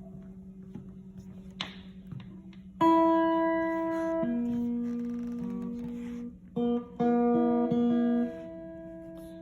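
Homemade amplified guitar with a hand-wound pickup being plucked: a loud note rings out about three seconds in and sustains, a second joins it, then a few more notes near the end are cut short. A steady low hum sits underneath.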